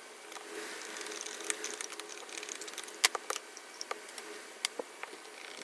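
Small clicks and taps of metal handle hardware, screws and a hand screwdriver being handled against a wooden drawer, with one sharp click about three seconds in. A faint steady hum runs underneath.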